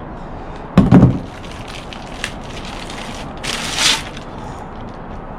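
Unboxing packaging being handled: a heavy thump about a second in, then a short burst of crackling, crinkling rustle near the middle, with a few small clicks.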